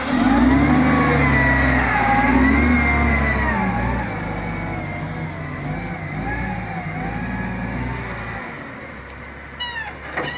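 Bulldozer's diesel engine working, its low rumble swelling and easing as it revs under load, with a wavering high whine above it. Loudest in the first few seconds, then easing off, with a few quick clicks and chirps near the end.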